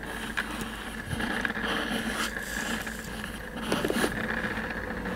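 Cat rubbing its head and fur against the camera lens: irregular brushing and scraping handling noise on the camera, with a few faint knocks.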